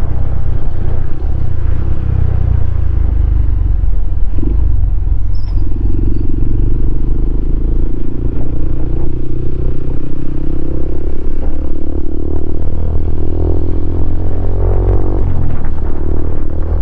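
Honda CRF150L's single-cylinder four-stroke engine running through a Norifumi Noctus T5 aftermarket exhaust while riding. The engine note climbs gradually through the middle and drops near the end, over a heavy low rumble.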